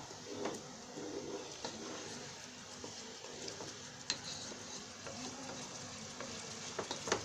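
Marinated mutton sizzling gently in oil in a nonstick pot while a wooden spatula stirs it, with a few sharp knocks of the spatula against the pot, the clearest about four seconds in and near the end.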